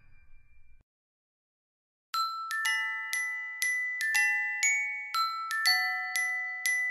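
Background music: after about a second of silence, a light glockenspiel-like melody starts about two seconds in, with struck, ringing notes about twice a second.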